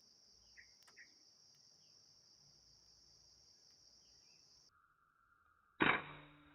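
Steady high buzz of insects with a couple of faint chirps, which cuts off abruptly; near the end a single sharp, loud report of an air rifle shot with a short fading tail.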